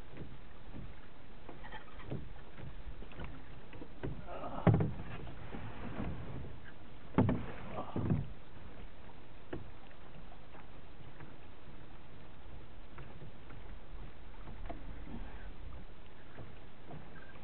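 Steady wind and water noise aboard a small vintage Alcort Sunfish sailboat under way. Three sharp knocks on the boat come about five, seven and eight seconds in.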